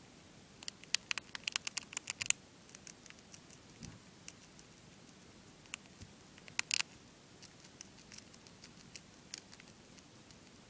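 A hamster nibbling a crisp cracker: quick, sharp crunching clicks, a dense run of them about a second in, another short cluster past the middle, and single crunches scattered between.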